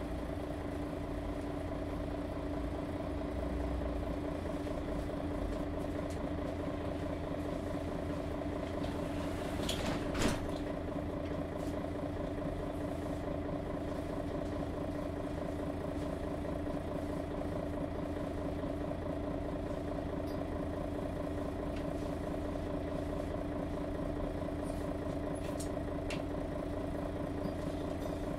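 Daimler OM 457 hLA six-cylinder diesel of a Mercedes-Benz Citaro G articulated bus running at a steady, unchanging engine speed. A short sharp click sounds about ten seconds in.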